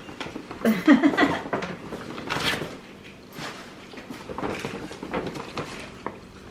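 Rustling and handling of gift packaging as presents are unpacked, in irregular bursts with a brief wordless voice sound about a second in.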